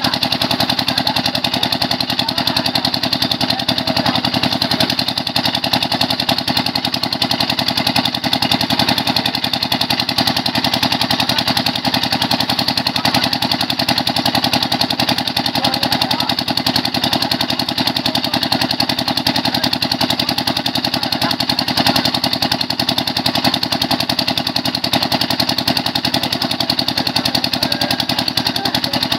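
A 7.5 hp pump-set engine running steadily at a constant speed with a fast, even firing pulse. It is driving the water pump that feeds water down the drill pipe during borewell drilling.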